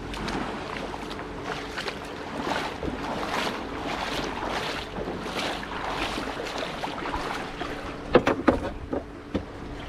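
Water sloshing with each step while wading through shallow water, in regular swishes a little under a second apart. About eight seconds in, a quick cluster of sharp knocks on the small boat's hull and deck, the loudest sounds here.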